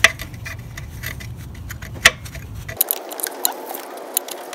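Metal clicks and clinks of a steel bolt being slid and prodded against an alternator's pivot ear and mounting bracket, trying to line up with the hole: one sharp click about two seconds in, then many small taps. A low rumble underneath cuts out about three seconds in.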